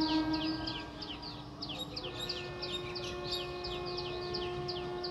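A bird calling in a fast, regular series of short falling chirps, about three or four a second, over a steady low hum that steps up slightly in pitch about two seconds in.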